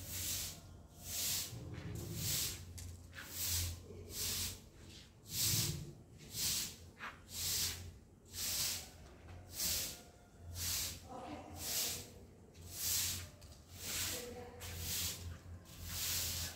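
Straw broom sweeping leaves and debris across wet tiled paving: a swish about once a second.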